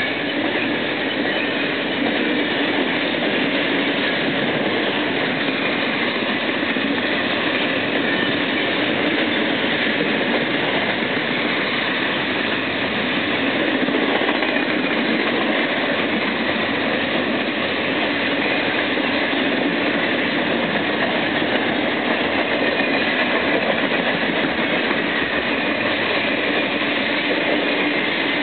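BNSF intermodal freight train's cars rolling past: double-stack container well cars and trailer-carrying flatcars, their steel wheels on the rails making a steady, even rolling noise.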